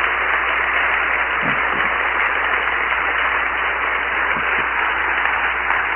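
Audience applauding steadily, a sustained even clapping from a lecture hall crowd.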